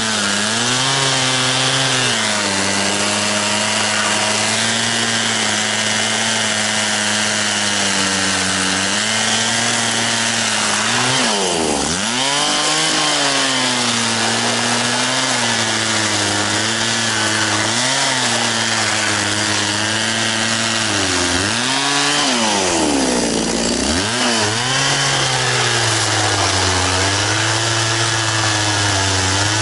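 Echo CS-670 two-stroke chainsaw running at high speed while cutting into a tree trunk. The engine note wavers under load, and twice it drops sharply and climbs back up.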